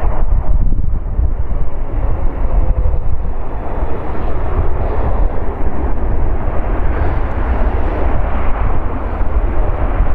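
Boeing 777 freighter's two GE90 turbofan engines running through the flare, touchdown and rollout: a loud, steady jet rumble, heavy in the low end, with wind buffeting the microphone.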